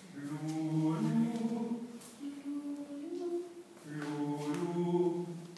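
A group of voices singing a cappella in unison or simple harmony: three phrases of held notes with short breaks between them, the pitch stepping up within each phrase.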